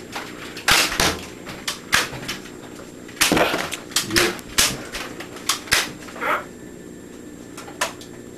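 Sharp, irregular clicks and knocks of Nerf blasters being primed and fired, and foam darts striking, about nine in all.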